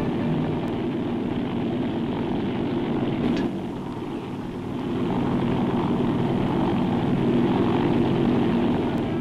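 Small bubble-canopy helicopter in flight, its engine and rotor giving a steady drone that eases off slightly about four seconds in.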